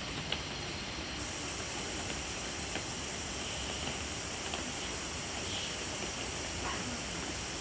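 Steady rain falling on woodland: an even hiss with a few scattered sharp drip ticks, picked up by an iPad's built-in microphone.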